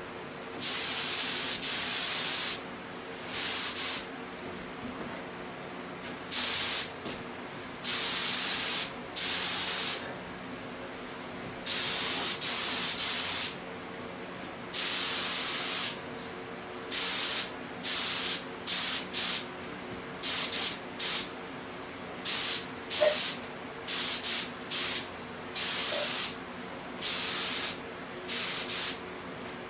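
Gravity-feed air spray gun hissing in bursts as the trigger is pulled and released while spraying paint. The sprays last a second or two in the first half, then turn into short, quick passes, several in each few seconds. A steady low hum runs underneath.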